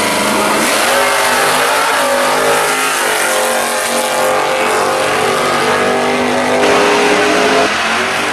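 Drag-racing cars' engines at full throttle as they launch and run down a drag strip. The loud engine note climbs in pitch and drops back several times as the cars accelerate and shift gears.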